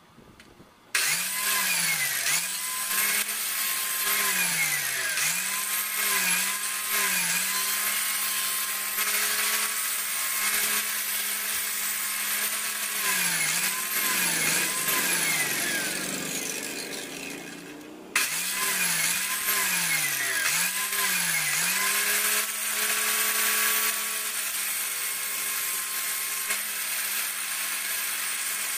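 A high-speed electric power tool is switched on about a second in. Its steady whine dips in pitch and recovers again and again as it is pressed into the work. Around the middle it fades down, cuts off briefly and is started again at once.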